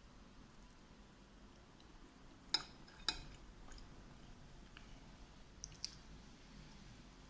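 Cutlery clinking against a dish, two sharp clicks about half a second apart, then two fainter clicks a little later.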